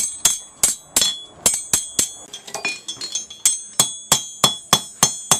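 Blacksmith's hammer striking hot steel on an anvil in a steady rhythm, about four blows a second, each with a bright metallic ring from the anvil, while the forged piece is trued up.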